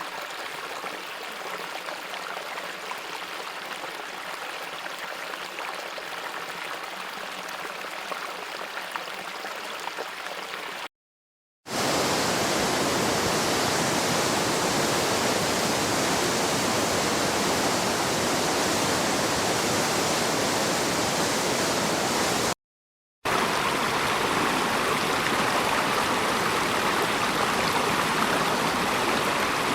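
Three back-to-back recordings of flowing stream water, each a steady rush, split by brief silences about 11 and 23 seconds in. The first is quieter and lighter; the second and third are louder and fuller.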